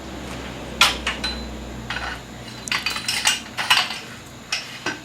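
Metal parts of a Suzuki DR650 front fork clinking and knocking together as they are handled and fitted. There are a dozen or so sharp, separate clinks, the loudest about a second in and a quick cluster around three to four seconds in.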